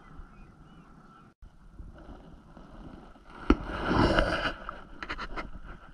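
Rustling and scraping handling noise from movement close to the camera on the ice, loudest for about a second midway, with a sharp knock at its start and a few quick clicks after it.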